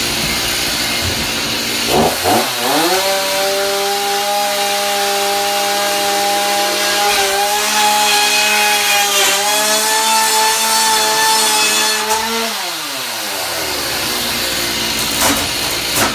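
Two-stroke gas chainsaw running rough at low revs, then revved up about two seconds in. It is held at a steady high whine for about ten seconds, then let back down to low revs.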